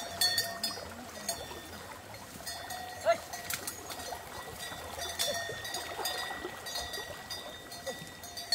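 Bells on grazing water buffalo clanking irregularly, the loudest stroke about three seconds in, over a steady thin tone.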